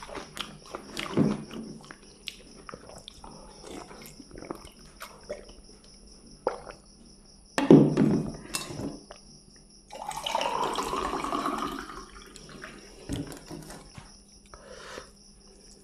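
Water poured from a plastic jug into a glass tumbler for about two seconds, its pitch rising as the glass fills. A loud knock on the table comes a couple of seconds before it, and small clicks and smacks of eating by hand are scattered around it.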